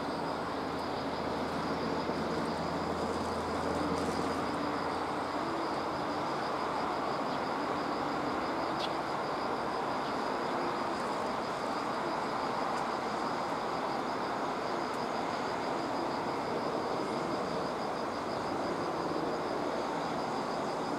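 Steady rushing outdoor background noise with a faint, high, continuous trill; a low hum fades out about four seconds in.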